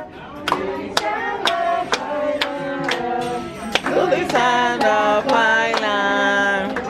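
Group of people singing a birthday song with a steady beat of sharp hits, about two a second.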